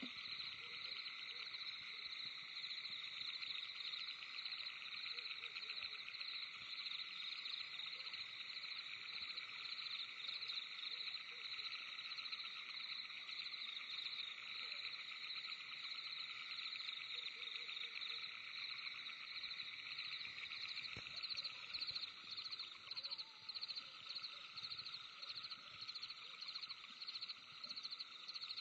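Night forest chorus of calling animals: a dense wall of rapid, pulsing trills, steady at first and breaking into short, regularly spaced bursts about two-thirds of the way through.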